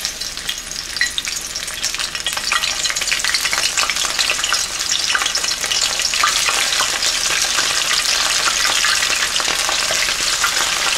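Cornstarch-dusted chicken wings sizzling and crackling in hot oil in a skillet, getting louder as more pieces are dropped in one after another.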